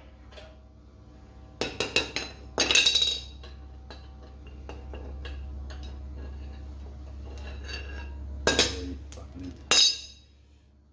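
Hand tools on a steel car chassis: a wrench and socket extension clinking and knocking against metal, with loose bolts clinking. A cluster of sharp clinks comes about two seconds in and two more near the end, over a low steady hum.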